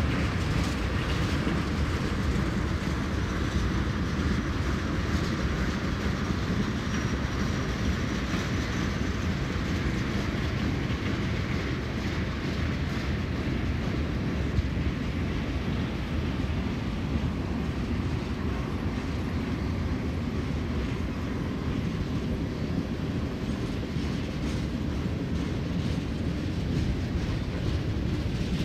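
BNSF mixed freight train's cars rolling past at a distance: a steady rumble of steel wheels on rail with occasional faint clicks.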